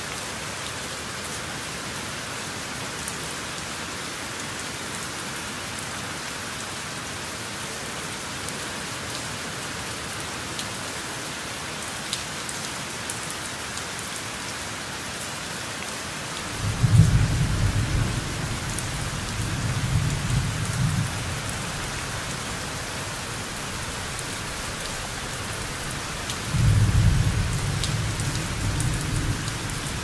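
Steady rain falling, with two low rolls of thunder: one starting a little past halfway and rumbling on for about four seconds, and a second near the end.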